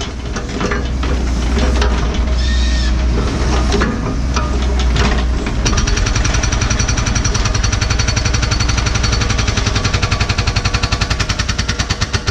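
NPK hydraulic hammer on a Cat 314E excavator pounding hard blue rock bedrock in fast, repeated blows, with the excavator's engine running steadily underneath. The blows settle into a very even rapid beat in the second half and stop right at the end.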